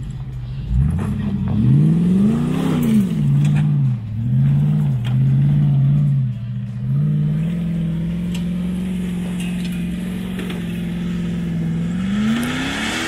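Jeep Grand Cherokee engine revving under load as it climbs a steep, loose rocky slope. The revs rise and fall several times in the first few seconds, hold steady for about five seconds, then rise again near the end.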